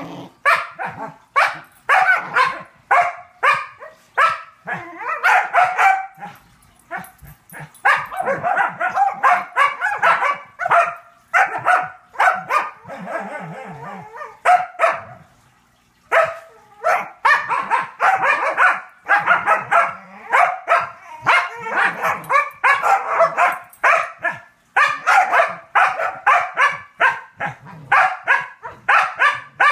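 Dogs barking and yipping in quick runs of short barks, with brief pauses about seven and sixteen seconds in.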